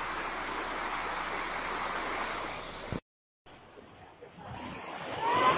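Heavy rain pouring onto a flooded street, a steady hiss. It cuts off abruptly about three seconds in, then a quieter rain hiss comes back and grows louder.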